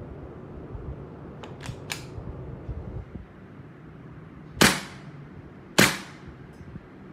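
CO2 blowback airsoft pistol fired twice, about a second apart, each shot a sharp crack. Three faint clicks come a couple of seconds before the shots.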